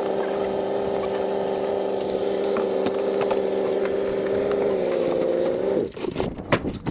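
A small machine running with a steady hum; its pitch dips slightly about five seconds in and it cuts off, followed by a few clicks and knocks.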